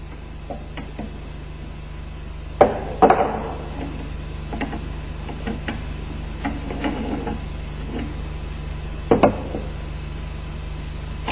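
Metal-on-metal clanks and taps as the clutch assembly tool is loosened and lifted off an MZ 250 clutch. There are two loud clanks a few seconds in, scattered lighter ticks, and a double clank near the end, over a steady low hum.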